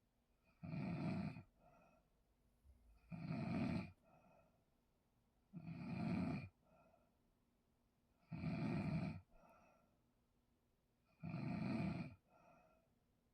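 A person snoring very loudly in sleep: five heavy snores about two and a half seconds apart, each followed by a fainter, shorter breath sound.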